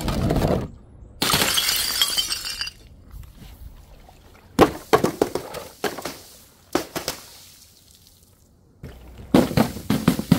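Glass breaking in several separate crashes, the longest and brightest about one to three seconds in, each followed by shards clinking and scattering.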